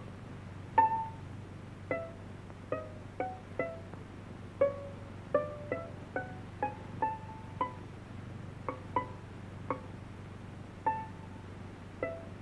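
Cartoon music of single plucked string notes, pizzicato, sounded one at a time at uneven spacing, about one or two a second, each dying away quickly. A faint steady low hum lies under it.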